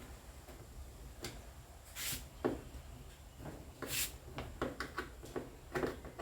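Handling noises: a run of sharp clicks and knocks, with two short scraping or rustling bursts about two and four seconds in, over a low steady hum.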